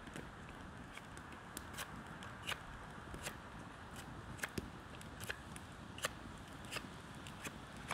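Wood fire crackling: irregular sharp pops and snaps, about one or two a second, over a faint steady hiss.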